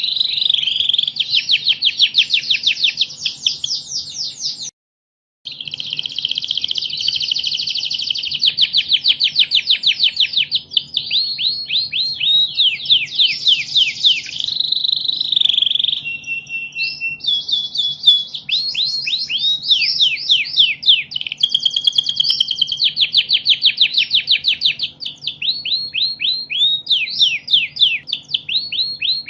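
Domestic canary singing a long, continuous song of fast trills and rapid repeated notes, breaking off for under a second about five seconds in.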